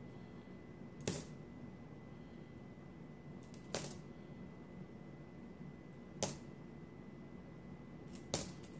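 Jefferson nickels clinking one at a time as they are handled and set down during a roll search: four sharp metallic clinks, two to three seconds apart.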